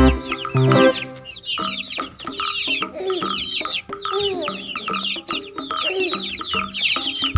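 Chickens clucking, with many high, quick falling chirps over rapid lower calls, about a second in after a short bit of background music.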